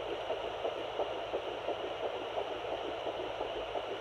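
Handheld fetal Doppler's speaker picking up a fetal heartbeat in early pregnancy (8 weeks 2 days): a fast, rhythmic whooshing pulse over a steady hiss.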